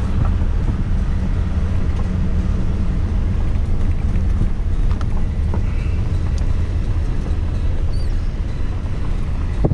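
Pickup truck (bakkie) driving, a steady low engine and road rumble with a few faint clicks.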